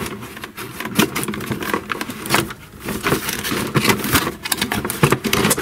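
Cardboard and plastic packaging rustling, scraping and knocking in a dense, irregular run as a plastic toy motorcycle is pulled by hand out of its box.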